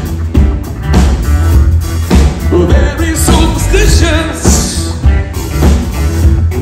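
Live rock band playing: a male singer over electric guitars, keyboard and drums, with heavy bass and a regular drum beat.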